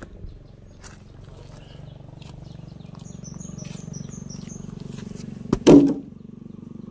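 A small engine runs with a steady low pulsing hum that grows louder toward the end. A bird gives a quick run of short falling chirps about three seconds in, and a loud knock comes near the end.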